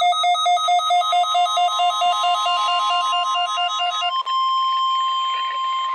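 NOAA Weather Radio warning alarm tone, a steady single pitch near 1 kHz, sounding for the weekly test. Over it, an electronic alarm beeps rapidly, switching back and forth between two pitches, until about four seconds in, when the beeping stops and the steady tone goes on alone.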